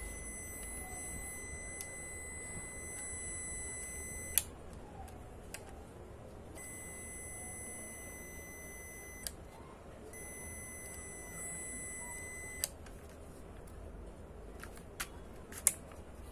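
Olympus XA-2 camera's electronic battery-check/self-timer beeper sounding a steady high beep three times, the first about four seconds long and the next two two to three seconds each, each stopped by a sharp click. A few more sharp mechanical clicks near the end.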